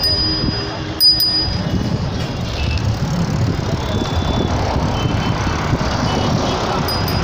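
Busy city road traffic: a steady rumble of passing cars and buses, with brief high bell-like rings at the start, about a second in, and again near the end.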